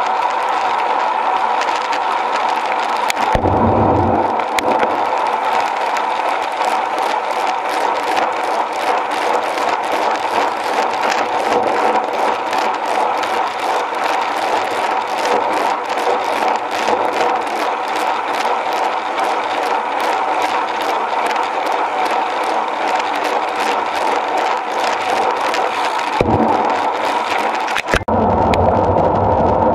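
Wind rushing over a bike-mounted action camera during a road ride, with a steady hum and constant fine rattling from road vibration through the mount. Louder low wind rumbles come about three seconds in and again near the end.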